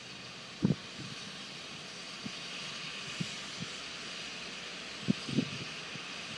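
Steady hiss from the idling Santa Fe #3751 steam locomotive, with several short low thumps scattered through it, the loudest about two-thirds of a second in.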